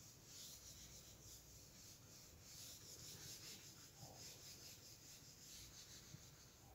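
Faint rubbing of a hand-held cloth wiping marker writing off a whiteboard, in repeated back-and-forth strokes.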